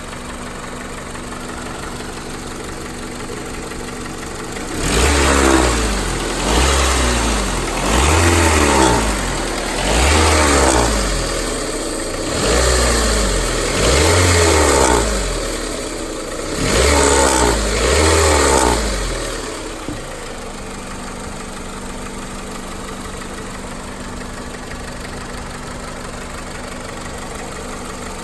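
Honda Civic's 1.7-litre four-cylinder engine idling, then revved in about eight quick blips over some fifteen seconds before settling back to idle. It is revved to bring out a strange noise on acceleration, which the owner traces to a worn-out timing-belt tensioner.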